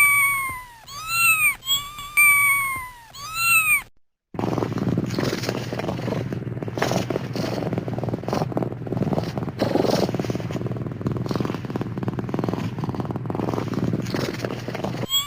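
Cat sound effect: four short meows, each rising and falling in pitch. After a brief gap comes a long, steady, rough rumbling that runs to the end.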